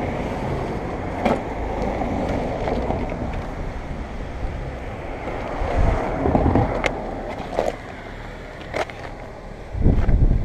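Rumbling handling noise on a helmet-mounted camera's microphone as the rider moves about the fallen motorcycle, broken by a few sharp clicks and knocks, with a louder thump near the end.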